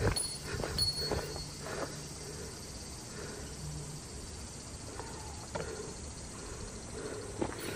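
A hiker's footsteps on a mountain trail: a few scattered steps at the start and again near the end, over a faint steady hiss.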